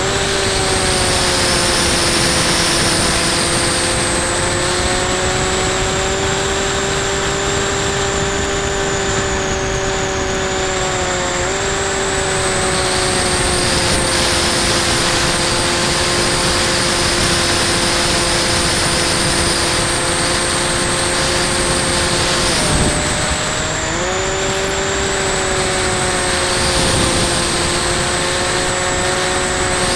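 Electric motor and pusher propeller of a Bixler 2 RC plane whining steadily from on board, over a rush of wind noise. The pitch drifts gently, then dips sharply about three quarters of the way through and climbs straight back.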